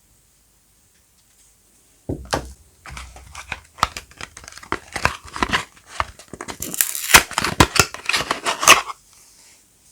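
Packaging being torn open and crinkled as a bar of soap is unwrapped. About two seconds in, a run of rustling, tearing and crackling starts; it is loudest near the end and stops shortly before the end.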